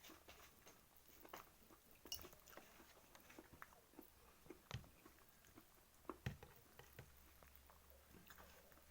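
Faint chewing and eating sounds: scattered small mouth clicks and smacks, with two louder knocks about five and six seconds in.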